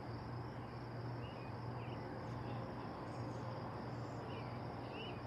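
Crickets trilling steadily at a high pitch over a low steady hum, with a few short faint chirps scattered through.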